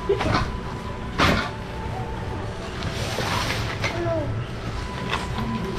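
Nylon carrying bag rustling and crinkling as it is handled over a cardboard box. There are a few sharp knocks, the loudest about a second in and one at the very end.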